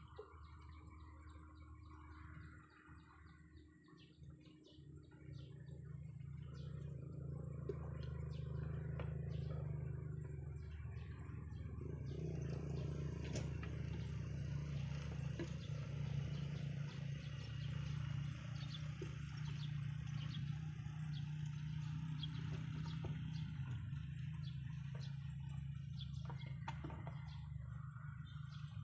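Birds chirping over a steady low hum that grows louder a few seconds in, with scattered small clicks.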